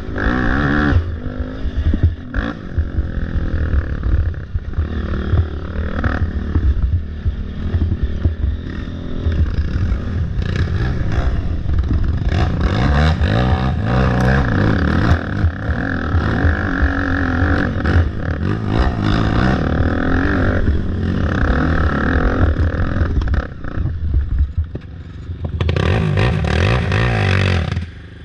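Race ATV's engine revving up and down continuously as it is ridden hard over a rough, rutted dirt trail, with the machine clattering and scraping over the bumps. Near the end there is a louder rushing noise for about two seconds.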